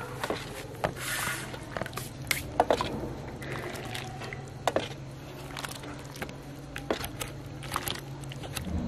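Steel ladle clinking and scraping against a steel ring and bowl as thick sugar syrup is scooped up and splashed over sticky fried dough pieces. Scattered sharp clicks and wet squishing over a steady low hum.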